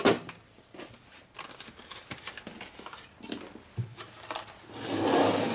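A dial bore gauge set down on a steel workbench with a sharp knock, followed by light clicks of parts being handled and a rustling scrape lasting about a second near the end, from rummaging in a tool drawer.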